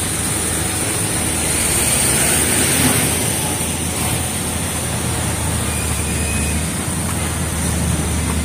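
Steady outdoor street noise: an even hiss with a constant low rumble, from traffic and the open air.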